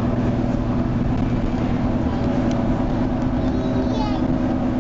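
Leyland Lynx Mk2 bus's Cummins L10 diesel engine running steadily under way, heard inside the saloon as a constant drone with a strong low hum. A small child gives a brief high squeal about four seconds in.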